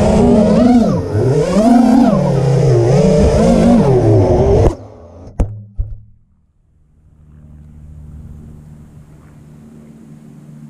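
Armattan Chameleon FPV quadcopter's brushless motors and propellers whining loudly, the pitch rising and falling with the throttle, until they cut off suddenly a little under halfway through. Two sharp knocks follow as the quad comes down on the ground, and after that only a faint low hum remains.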